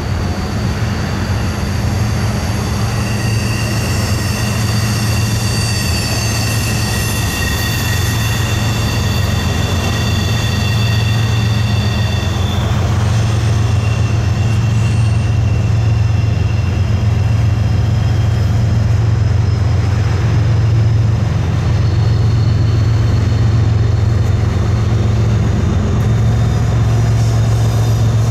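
A freight train of coal hopper cars rolling by with a steady low rumble. High steel-wheel squeals ring over it for the first dozen seconds or so, then fade and return faintly near the end.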